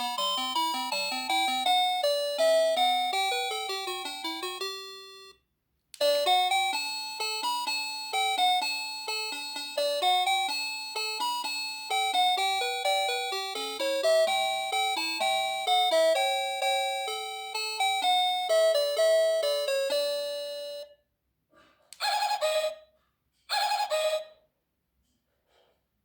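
NX-5776-675 electronic doorbell playing its chime tunes in quick, bright notes: one melody ends about five seconds in, a second longer melody follows, and near the end come two short chime bursts.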